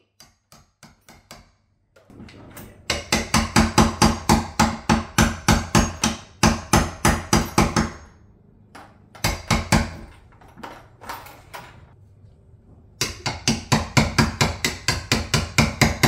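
Hammer striking a wood chisel against a wooden door edge in rapid, light, even blows, about five a second. There are a few faint taps at first, a long run starting about three seconds in, a sparser patch of scattered blows, then another fast run near the end.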